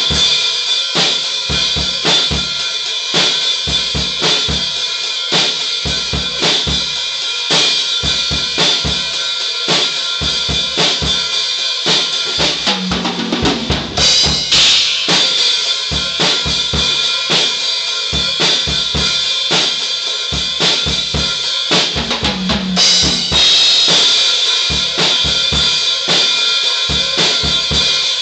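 Tama acoustic drum kit played in a steady beat of bass drum, snare and cymbals. About halfway through, and again about two-thirds of the way through, a fill around the toms lands on a cymbal crash.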